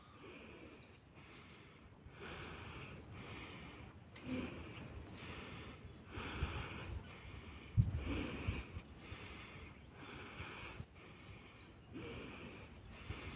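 Forceful breathing through the nose, one nostril held shut by the fingers, in a steady run of breaths about a second each: alternate-nostril pranayama breathing. A few low thumps come near the middle.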